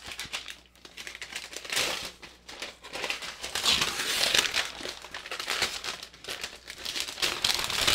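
Paper protective wrap being peeled off a new laptop's lid and crinkled in the hands, a dense run of crackling rustles that is loudest around the middle.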